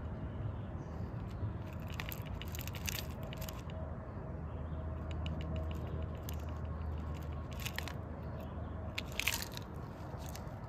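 Small lumps of calcium metal tumbling out of a plastic bottle onto paper on a digital scale: light clicks and rattles in a few brief clusters.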